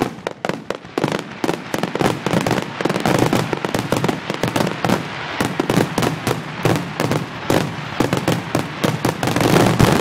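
Aerial fireworks display going off in a dense barrage: rapid, overlapping bangs and crackles with no let-up, growing louder near the end.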